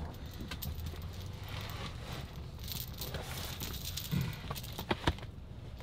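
Child climbing onto a booster seat in a car's back seat: rustling and light knocks of clothing and seat, with two sharp clicks near the end, over a low steady cabin hum.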